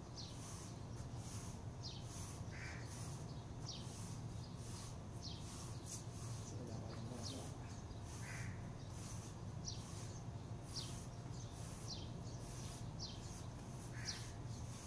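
Birds calling: a steady series of short, high, falling chirps about once a second, with three lower calls spaced about six seconds apart, over a low steady hum.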